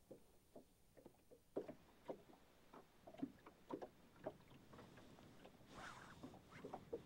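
Near silence on an anchored boat: faint, irregular small knocks and water lapping against the hull, with a brief soft rush about six seconds in.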